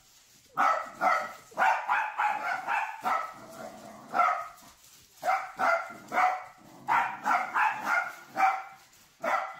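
Small terriers play-barking while tugging at a pole toy: rapid runs of short, sharp barks with brief pauses between the runs.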